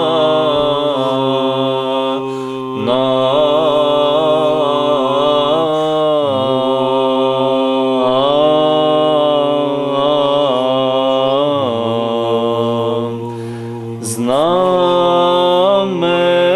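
Male chanters singing Byzantine chant: a melody moving over a steady low held drone note (the ison), with a short breath-like dip about thirteen seconds in before the melody rises again.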